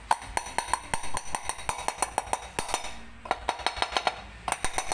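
Light, quick hammer taps on metal, about five a second with a short pause after about three seconds, each with a bright ring: the freewheel-side cover of an electric bicycle hub motor being tapped evenly into place on its bearing.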